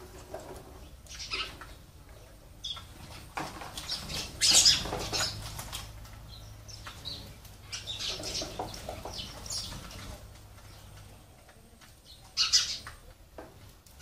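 Sparrows' wings fluttering in short bursts as they fly on and off hanging bottle feeders, the loudest about four and a half seconds in and again near the end.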